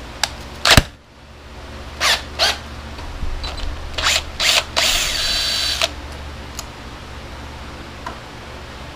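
Cordless drill backing out the ignition-coil mounting screw on a riding mower's engine. It runs in five short bursts and then one longer run of about a second around the middle.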